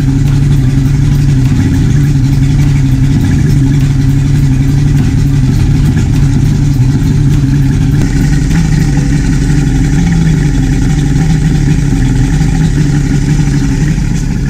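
Yamaha HPDI 200 hp six-cylinder two-stroke direct-injection outboard idling steadily in gear with the spark plug leads pulled from cylinders 2 and 3, so it runs on four cylinders with an audibly changed idle.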